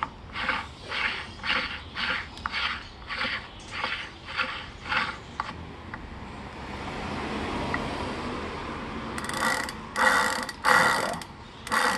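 DNP 8-speed bicycle freewheel turned and spun by hand on a hub motor, its pawls ratcheting in short bursts about twice a second, then a smooth spinning hiss, then louder runs of ratcheting clicks near the end. It spins freely, a sign that it is seated and working properly.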